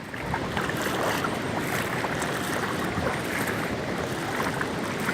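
Steady rushing of a river and waterfall in full flood, swollen and overflowing after heavy overnight rain.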